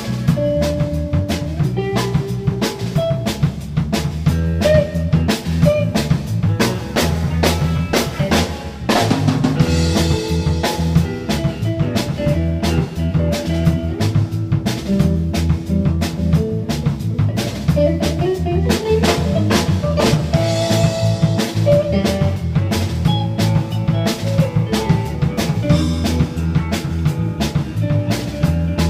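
Blues band music: a steady drum-kit beat with bass and melody, and a couple of cymbal crashes along the way.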